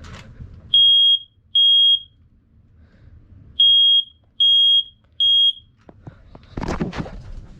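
Smoke alarm sounding on test: loud, high-pitched beeps, all at one pitch. There are two, then after a pause a group of three, in the temporal-three alarm pattern.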